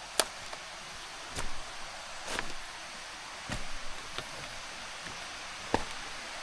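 Footsteps on a jungle trail: irregular crunching steps and knocks about a second apart, over a steady hiss of the forest.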